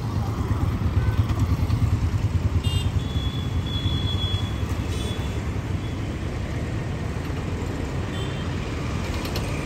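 Road traffic: motorcycles, scooters and cars running past, a steady low rumble with a few short high tones around three and eight seconds in.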